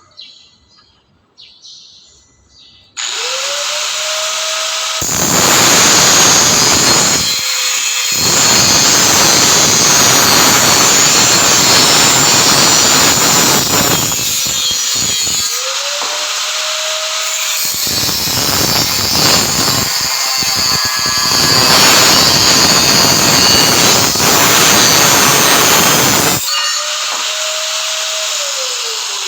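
Angle grinder spinning up with a rising whine, then grinding or cutting steel in long loud passes with two short breaks. It then runs free briefly and spins down.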